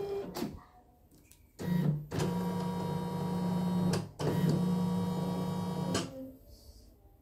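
YOKO computerized embroidery machine running in stop-start spells, a steady motor hum with mechanical clatter, two of them about two seconds long, stopping about six seconds in. It is a test run of the machine in embroidery mode after its mode sensor was replaced.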